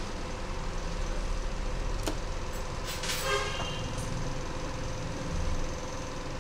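Steady background noise with a constant hum, a sharp click about two seconds in, and a short horn toot about three seconds in.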